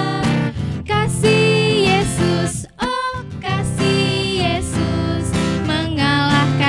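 Two women singing a children's worship song in Indonesian into microphones, accompanied by acoustic guitar, with a brief pause between phrases about three seconds in.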